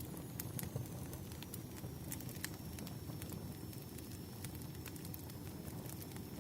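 Wood fire burning: a steady low rumble with sharp, irregular crackles and pops from the burning firewood.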